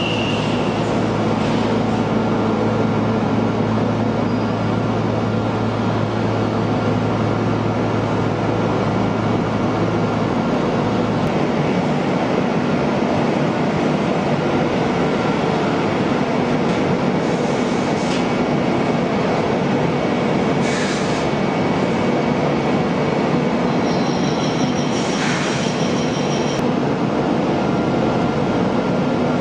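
Automated Okuma CNC machining line running while it machines crankshafts: a steady, loud mechanical noise with humming tones. A low hum drops out about a third of the way through. Several brief, higher hissing or whining sounds come in the second half.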